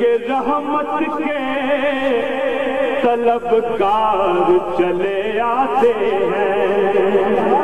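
A man's voice chanting a naat, an Urdu devotional poem in praise of the Prophet, in a melodic, wavering line with long held notes.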